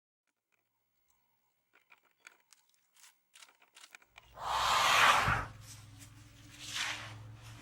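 Elephant sounds: faint crackling, then a loud, breathy blast lasting about a second, and a shorter, weaker one near the end.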